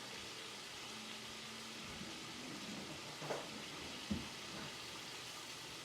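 Pork chops frying in oil in a pan, a steady sizzle, with two brief knocks a little after the middle.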